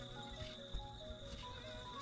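Background music with held melodic notes, over a few faint knocks of a knife cutting through fish fillet onto a wooden chopping board.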